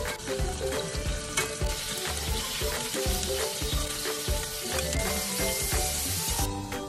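Indian mackerel sizzling as it pan-fries in hot oil, a dense steady hiss that cuts off shortly before the end. Background music with a steady beat plays underneath.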